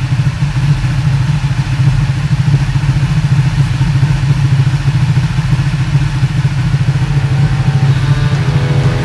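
A sportbike engine idling steadily on its paddock stand, a loud, even, low rumble.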